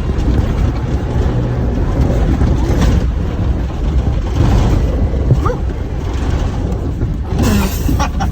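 A new Ford Bronco on the move, heard from inside: a steady, loud low rumble of engine and road or trail noise, with a few faint short squeaks.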